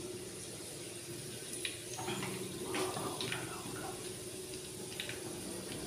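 Cooking oil poured from a plastic jar into a clay handi (earthen cooking pot), running into warm oil that is bubbling in the pot, with a few light clicks.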